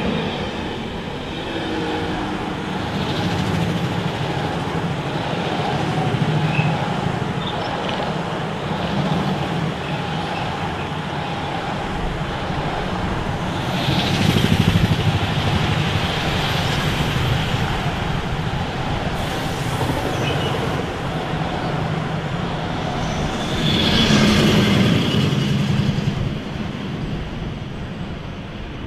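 Long freight train carrying lorries on low-floor wagons rolling past close by behind a BLS Cargo electric locomotive: a steady rumble and clatter of wheels on rail that swells louder twice, then fades near the end as the last wagons draw away.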